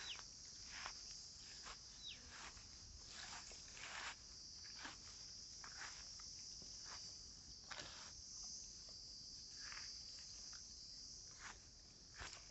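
Steady high-pitched insect chorus, with irregular rustles and crunches of movement through dry grass.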